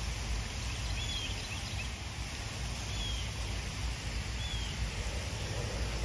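Three short, high bird chirps spaced a second or two apart, over a steady low rumble of wind on the microphone.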